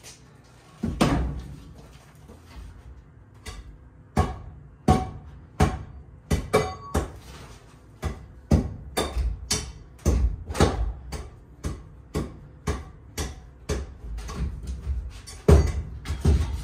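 Shovel digging into packed dirt and rubble in a trench under a floor: repeated strikes and scrapes, about one or two a second, starting about a second in.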